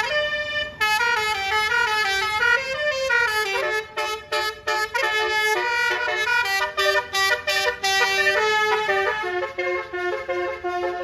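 Tour bus 'basuri' telolet musical air horn playing a fast tune of short, stepping notes, with one note bending up and back down about two to three seconds in.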